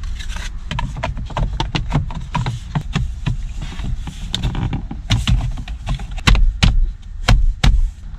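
Hard plastic steering column covers being handled and fitted back together: a steady run of light clicks and knocks, with four or five louder thumps near the end as the covers are pressed into place.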